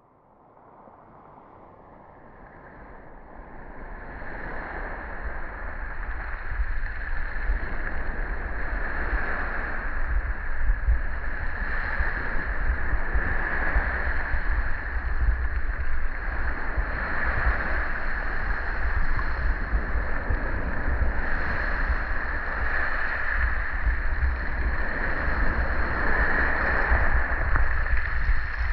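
Calm Black Sea water lapping and sloshing right against the microphone, with a low rumble of wind on the microphone. It rises gradually from near silence over the first several seconds, then runs on steadily.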